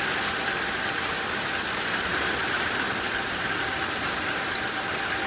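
Heavy rain falling steadily. A distant outdoor tornado warning siren's steady tone fades away in the first second.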